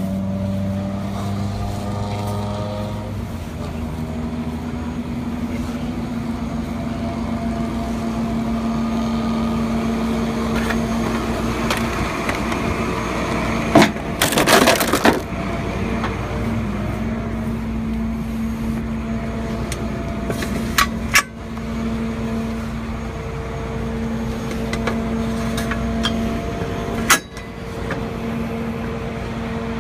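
A tow truck's diesel engine idling with a steady low hum. Over it come a short rattling clatter about halfway through, and single sharp knocks a little later and near the end.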